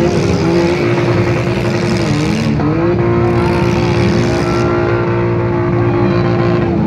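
Demolition derby cars' engines revving hard: one climbs in pitch at the start and is then held at high revs for several seconds, over the running of other engines.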